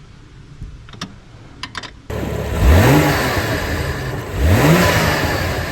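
BMW M2's N55 turbocharged 3.0-litre inline-six with a K&N drop-in air filter: a few light clicks, then the engine comes in loudly about two seconds in and is revved twice, pitch rising and falling each time.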